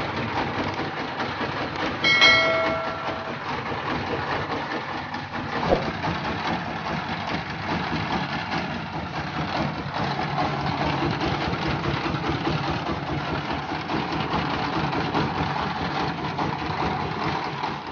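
Diesel engine of a mobile rice-milling rig running steadily, giving the rough, uneven running sound that is the fault to be repaired. A short high-pitched tone sounds briefly about two seconds in.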